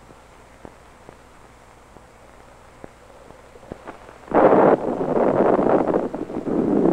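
A faint hiss with scattered small crackles, then, a little over four seconds in, a sudden loud rush of wind that rises and falls unevenly.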